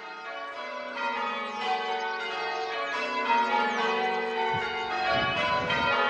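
Church tower bells being change-rung, heard from outside the tower: a rapid run of overlapping strokes that grows louder. A low rumble joins near the end.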